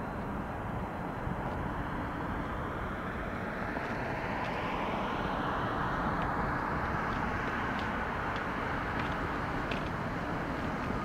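Airbus CASA CC-295 Kingfisher's two Pratt & Whitney PW127G turboprops running as the aircraft taxis, a steady propeller and engine drone that grows a little louder about halfway through.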